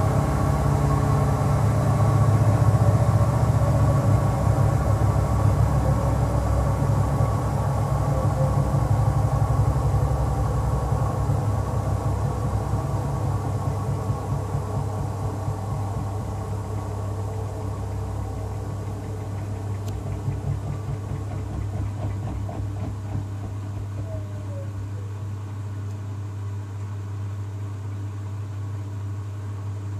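Bosch WAY32742 front-loading washing machine winding down from its high-speed spin with an unbalanced load of two bath rugs. The drum hum and motor whine slowly drop in pitch and grow quieter as the drum slows.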